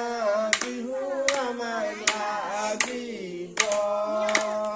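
A woman singing a Bihu song unaccompanied, with hand claps keeping a steady beat about every three-quarters of a second.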